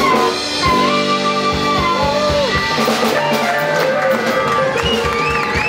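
Live blues band playing a slow blues: electric lead guitar and harmonica with bending notes over bass and drums.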